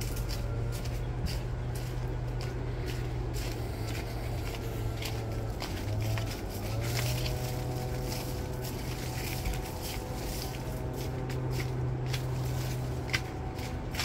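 Footsteps crunching through dry fallen leaves and grass on a dirt path, in irregular crackly steps over a steady low rumble.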